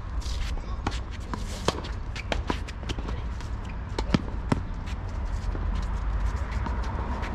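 Tennis rally on an outdoor hard court: a string of sharp pops from racket strikes and ball bounces, with players' footsteps and shoe scuffs. The loudest hits come about four seconds in.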